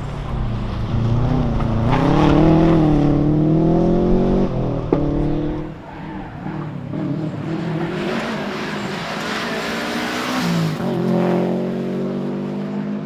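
Subaru WRX STI's turbocharged flat-four engine under hard acceleration, its pitch rising for a few seconds. About five seconds in there is a sharp click and the engine note falls away as the throttle comes off. It then pulls steadily again, with another change of pitch near the end.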